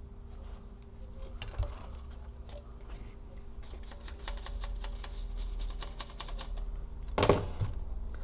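Plastic scraper scratching old, dried thermal paste off a laptop CPU: scattered scratchy clicks, then a quick dense run of them through the middle, over a low steady hum. A short louder noise comes near the end.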